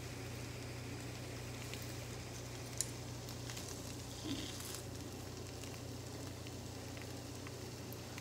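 Seasoned potato wedges sizzling quietly in a nonstick frying pan while a chopstick stirs them, with one sharp click about three seconds in.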